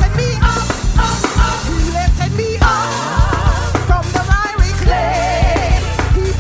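Gospel band music: bass, drum kit and keyboards with a lead singer and vocal group, sung with vibrato over a steady beat.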